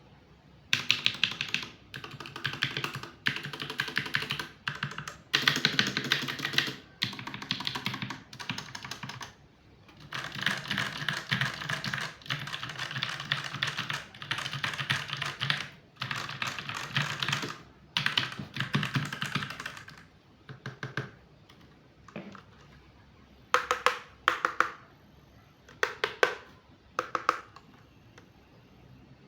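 Typing on a computer keyboard: fast, continuous runs of keystrokes broken by short pauses, thinning out to a few brief bursts of keys in the last third.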